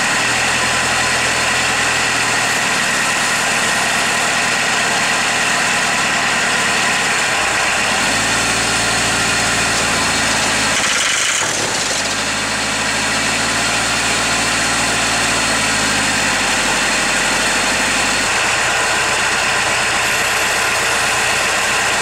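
Ford Transit's diesel engine running after a hard cold start helped with ether. The engine speed changes about eight seconds in, dips briefly a few seconds later, and settles back near the end.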